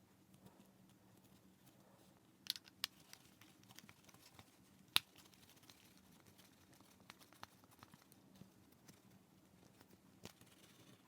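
Quiet handling of small diverter-valve parts: a few faint, sharp clicks and ticks, a pair about two and a half seconds in and the loudest around five seconds, over low room hum.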